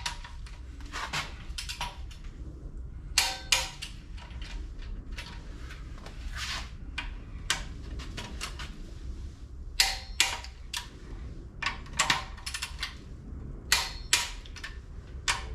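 Sharp metallic clicks and clinks of a wrench working on cylinder head bolts as they are torqued to 50 pound-feet, several coming in quick pairs.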